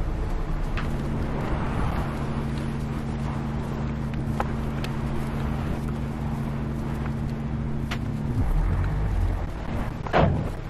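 A steady low mechanical hum, like an idling engine, runs and then stops about eight seconds in. A few light clicks sound, and a sharp knock comes near the end.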